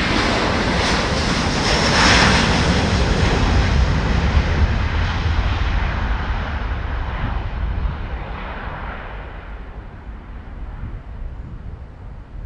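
Jet engines of a Delta Air Lines Airbus A330 on a departure from the runway. Loud engine noise peaks about two seconds in, then fades steadily as the aircraft moves away, the higher part of the sound going first.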